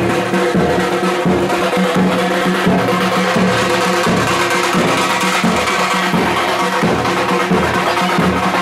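Drums played by a troupe of street drummers, beating a loud, quick, steady rhythm of about three strokes a second, with a held pitched tone underneath.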